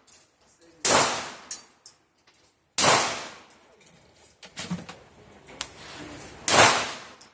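Three gunshots from a firearm on a shooting range, irregularly spaced a couple of seconds apart, each with a short ringing tail, with fainter clicks between them.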